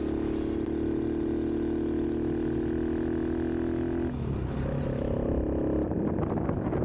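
Honda Monkey's single-cylinder engine running while the bike is ridden, holding a steady note. About four seconds in the note drops sharply, then picks up again rougher and louder.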